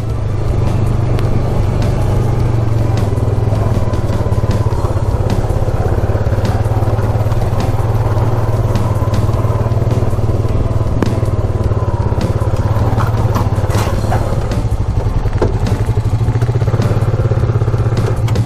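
ATV engine running steadily while riding, with scattered clicks and knocks over it.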